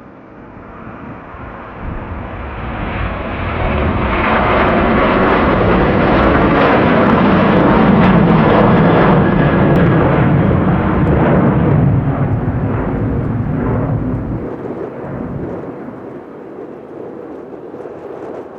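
Jet airliner passing close by: its engine noise builds up, peaks near the middle and fades away.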